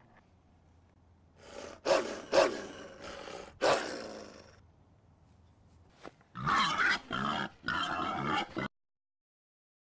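Small terrier barking and growling: a few sharp barks about two seconds in, then a quick run of growling barks that cuts off abruptly near the end.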